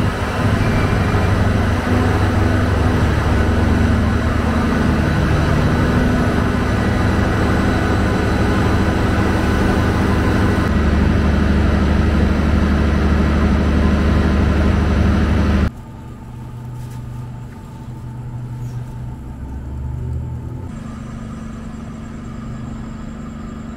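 Diesel train engine running with a loud, steady low rumble. About 16 seconds in, the sound cuts off suddenly to a much quieter low hum.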